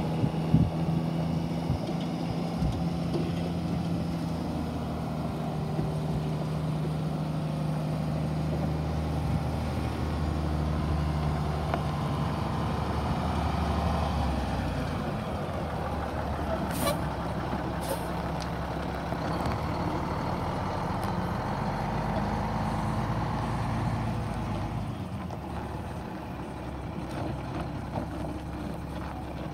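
1994 Mack CH613 truck tractor's diesel engine running as the truck drives around a gravel yard, its note shifting with throttle. There are two brief air-brake hisses about halfway through, and the engine sound drops lower near the end.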